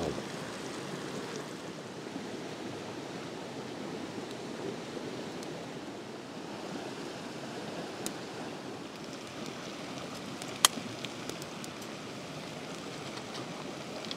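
Steady rushing background noise with a wood cooking fire crackling: a few sharp pops, the loudest about ten and a half seconds in, and faint ticks near the end.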